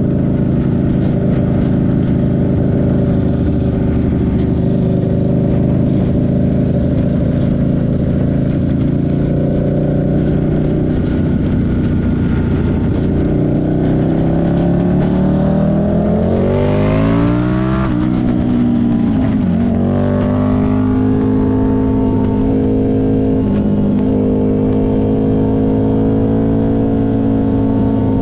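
Buell 1125CR's 1125 cc V-twin engine, recorded while riding: it holds a steady cruise, climbs in revs for a few seconds about halfway through, drops sharply at a gear change, then settles back into a steady cruise.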